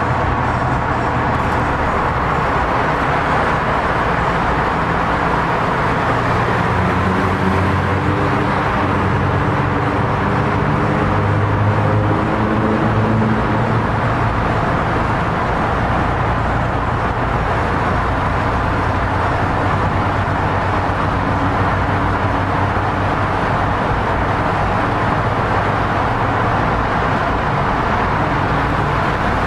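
Steady car engine and road noise, with the engine pitch drifting slowly up and down through the middle.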